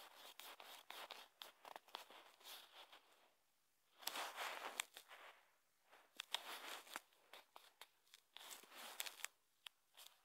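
Faint scratchy rubbing and clicking of a fingertip sliding and tapping on a phone's touchscreen while drawing, picked up by the phone's own microphone, in four short spells with quiet gaps between.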